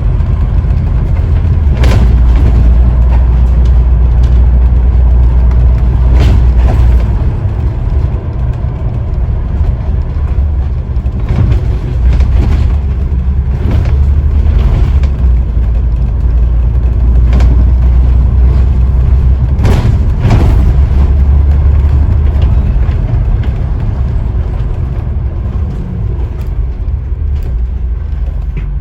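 Scania N94UD OmniDekka double-decker bus heard from on board while driving, its diesel engine and road noise making a loud, steady low rumble. The rumble rises and falls with the engine, and a handful of sharp knocks or rattles sound every few seconds.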